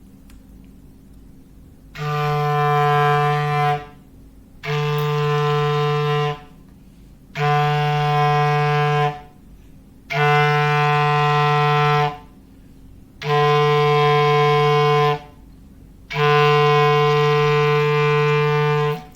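Foghorn sound effect: six long, steady low blasts at the same pitch, each about two seconds, with short gaps between them.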